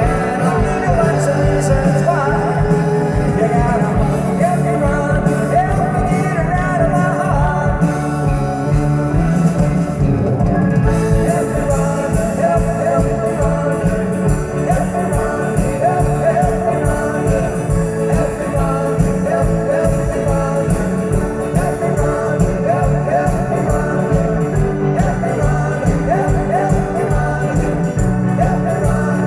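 Live rock band playing a song with a singer over a steady beat.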